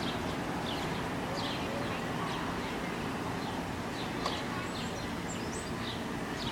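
Small birds chirping over and over in short, falling calls, above a steady low background rumble.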